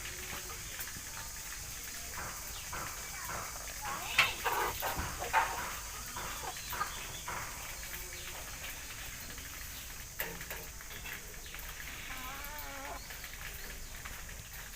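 Chickens clucking and squawking. The calls are loudest in a flurry about four to five and a half seconds in, with a wavering call near the end.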